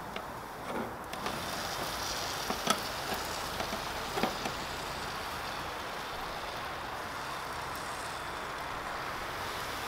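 Beef koobideh kababs sizzling over hot charcoal as a steady hiss. A few sharp clicks come from the flat steel skewers as they are turned, about two and a half and four seconds in.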